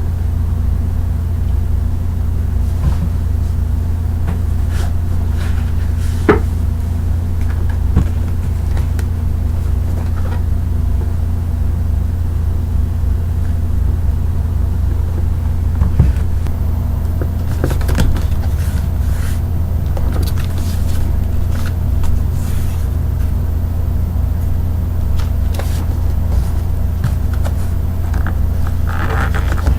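A steady low hum runs under everything, with scattered sharp clicks and a brief crinkling rustle near the end as packaging and bubble wrap are handled.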